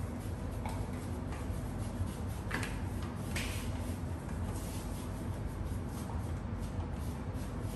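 Cloth wiping and rubbing on an electric scooter's deck, with a few short scrapes, two of them louder around the middle, over a steady low hum.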